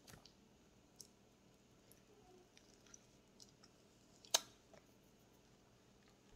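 Faint scattered clicks and small wet mouth sounds of a child eating soft soursop fruit close to the microphone, with one sharper click about four seconds in.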